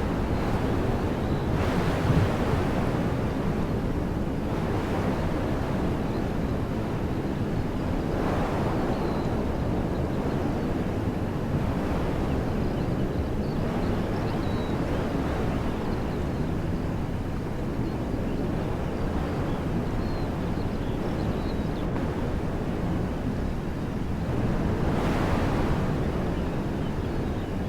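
Wind blowing through trees: a steady rushing that swells in gusts a few times, with a low rumble of wind buffeting the microphone.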